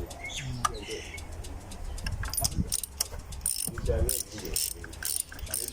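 Irregular light metallic clicks and clinks of hand tools being worked on the engine, with a couple of brief muffled words.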